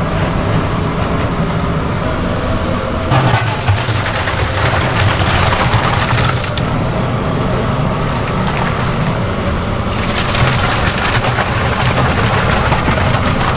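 Cooked loaches and hot broth being scooped from a large cooking kettle and tipped into a metal bowl, a wet sliding, splashing rush that comes twice, about three seconds in and again about ten seconds in, over a steady low kitchen rumble.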